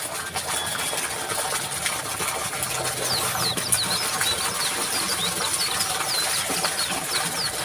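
Steady rushing water, with a bird calling in rapid, repeated short down-slurred chirps from about three seconds in.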